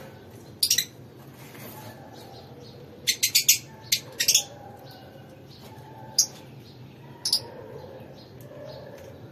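Fischer's lovebirds giving short, high-pitched chirps. There is one chirp under a second in, a quick run of several about three seconds in, and two more single chirps later.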